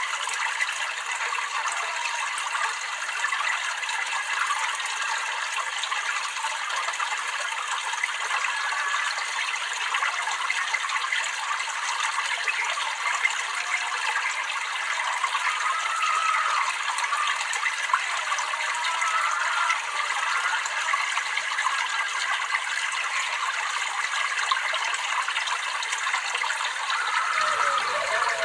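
Water trickling and babbling steadily, a bright splashing with small gurgles; a deeper rush joins in near the end.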